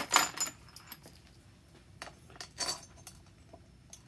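Small steel bolts clinking and rattling in a plastic parts box as they are picked out by hand, loudest at the start, followed by a few scattered lighter clicks.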